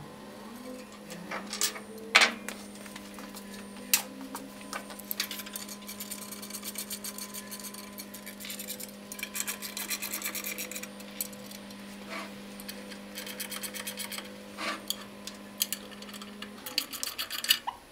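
Socket ratchet wrench clicking in rapid runs while tightening the tie-rod nuts that draw an electric motor's end covers together, with a few sharper metal knocks in the first seconds.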